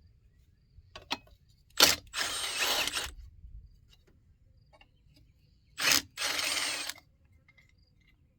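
A ratchet wrench being worked to loosen the muffler bolts on a small engine: two runs of rapid ratcheting of about a second each, each starting with a sharp click.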